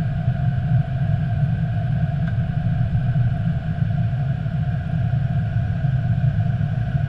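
Steady low rumble of airflow and engine noise inside an Airbus A320 cockpit on approach, with a faint steady hum at two pitches above it.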